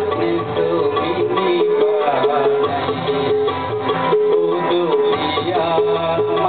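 Live band playing a Sinhala Buddhist devotional song (bodu bethi gee), with a plucked-string melody over the band's steady accompaniment.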